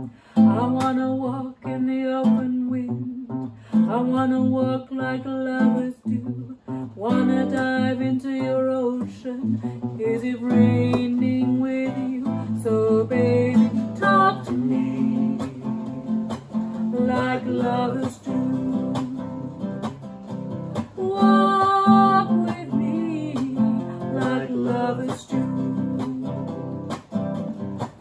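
Acoustic guitar strummed in chords, with a man and a woman singing a song together.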